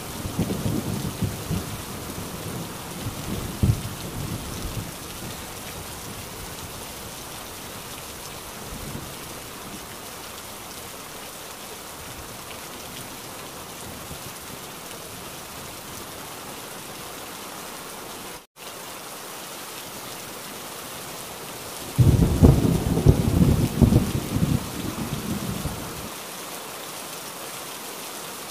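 Heavy rain falling steadily, with a thunder rumble dying away over the first few seconds. About 22 seconds in, a sudden loud peal of thunder rumbles for about four seconds and cuts off abruptly, leaving only the rain.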